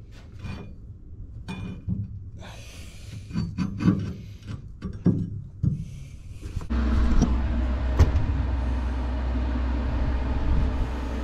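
Rusty steel offcut being handled and worked by hand, with irregular scrapes and clicks. About two-thirds of the way in, an engine suddenly starts running steadily and keeps going.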